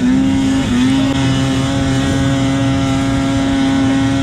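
Snowmobile engine held at full throttle, a steady high-pitched drone that settles after a brief dip about half a second in.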